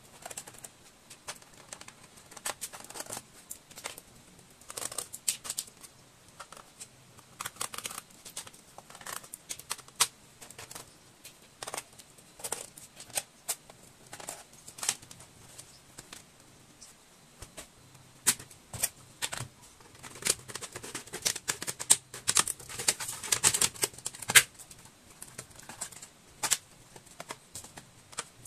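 Irregular sharp clicks, taps and small plastic snaps of a laptop's bottom case being unscrewed and pried open, with a dense run of clicks about two-thirds of the way through.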